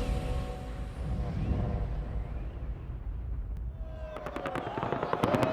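A low rumble with the last of some music fading out, then from about three and a half seconds in, fireworks crackling in a rapid, thickening stream of sharp pops.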